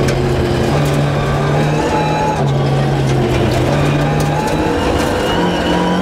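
Rally car engine heard from inside the cabin, running at speed with its pitch shifting up and down several times as the driver works the throttle and gears, with scattered sharp clicks.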